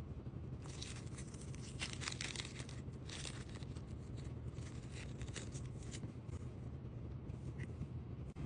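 Small die-cast toy car wheels and axles handled by hand: a quick run of light clicks, scrapes and taps over the first six seconds, then a couple of single ticks, with a steady low hum underneath.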